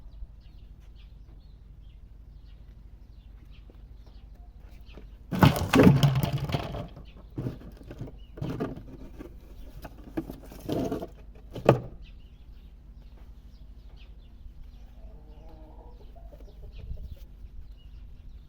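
Pigeons, with several loud rustling, scuffling bursts between about five and twelve seconds in, then a short low cooing call a few seconds later.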